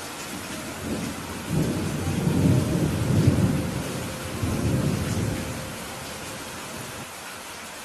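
Steady rain with a low rumble of thunder that builds about a second in, swells and dies away after about five seconds.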